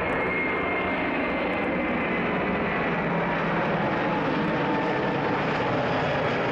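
Airbus A330-200's twin jet engines at takeoff power as the airliner climbs away: a steady rumble with a faint high whine that fades out over the first couple of seconds.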